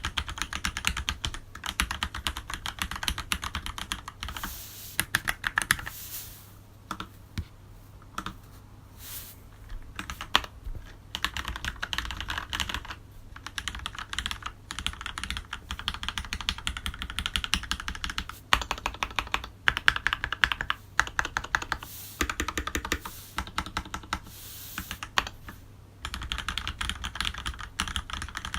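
Typing on a Leopold FC750R mechanical keyboard with lubed Cherry MX Black linear switches and GMK doubleshot keycaps: fast runs of keystroke clacks broken by a few short pauses.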